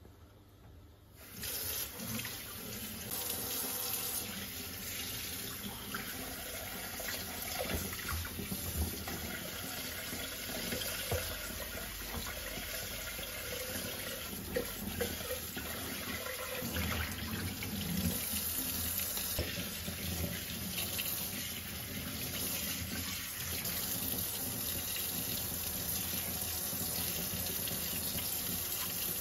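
A kitchen tap is turned on a little over a second in and runs steadily into a stainless steel sink. The water splashes over a Thermomix TM6 stainless steel mixing bowl and its blade base as they are wiped and rinsed with a cloth, with a few light knocks of the parts.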